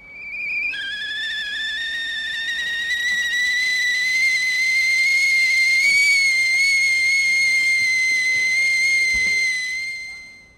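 A loud, steady, high-pitched whistle held for about ten seconds, opening with a brief higher note, its pitch creeping slowly upward, then fading out near the end.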